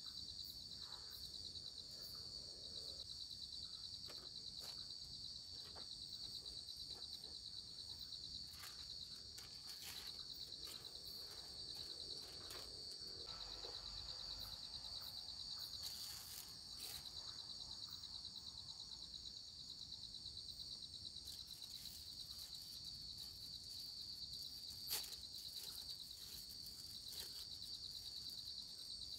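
Crickets trilling in a steady high-pitched chorus, with scattered faint clicks and crackles through it.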